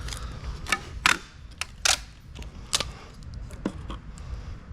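A handful of sharp clicks and knocks, about five, spaced irregularly, over a steady low rumble.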